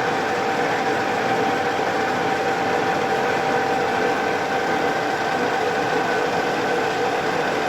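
Metal lathe running steadily: a constant mechanical whir with a few steady tones in it.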